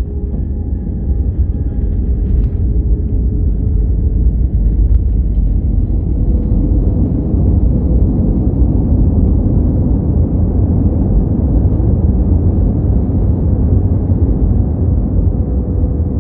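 Passenger jet's landing rollout heard from inside the cabin: a steady low rumble of wheels on the runway and engines, with a faint steady engine tone. It grows louder about five seconds in, as the wing spoilers stand raised to slow the plane.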